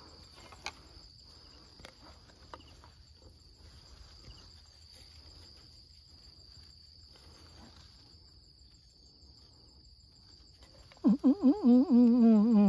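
Insects droning, one steady high-pitched buzz throughout. A man's voice breaks in loudly near the end.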